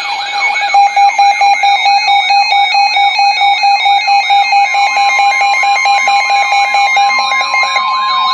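Weather-radio alarm for a tornado warning: a loud siren-like whoop rising over and over, about three times a second, over a steady tone and stepping beeps. About halfway through, a steady single-pitch alarm tone joins in; this is the NOAA Weather Radio 1050 Hz warning tone.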